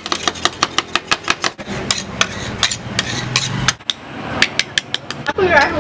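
Two metal spatulas chopping toppings into an ice cream base on a frozen metal ice cream pan: rapid, irregular metal-on-metal taps, several a second, with a short pause about two-thirds through before the tapping resumes.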